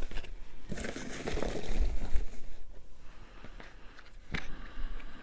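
Hands rummaging through a box of foam packing peanuts, rustling for a couple of seconds, then small cardboard knife boxes being picked up and handled, with a sharp tap about four seconds in.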